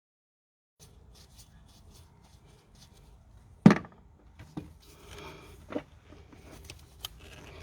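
Small clicks and handling noise of hands and tools working a diesel fuel injector loose from the engine, with one sharp knock about three and a half seconds in and a few lighter knocks after it.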